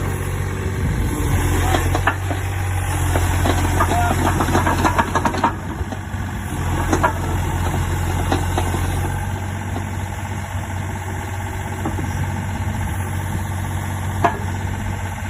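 Takeuchi TB235 compact excavator's diesel engine running steadily while the machine is driven and its controls worked. The first few seconds carry heavier running with rattling and knocks, then it settles, with a few sharp clanks, the clearest near the end.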